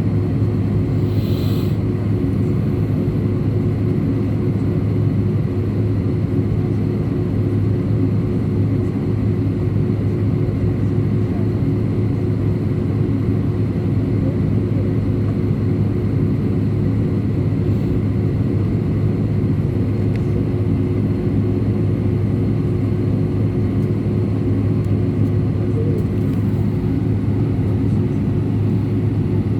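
Steady drone of an Airbus A319's jet engines and airflow heard from inside the passenger cabin. It is a low, even hum with a few steady tones above it.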